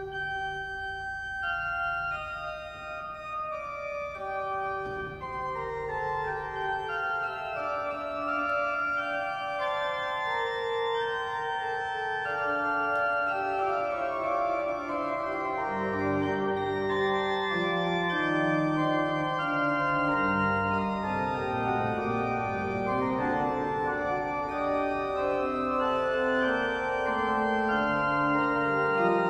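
Church organ playing the closing voluntary after the dismissal, with held chords in the upper voices at first. Bass notes come in about halfway, and the music grows fuller and louder.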